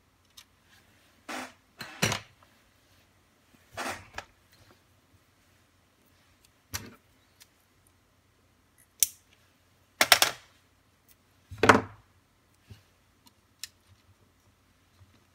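Small parts and tools handled on a workbench: scattered light clicks and taps, with several short ripping sounds of adhesive tape pulled off a roll, the loudest two about ten and twelve seconds in.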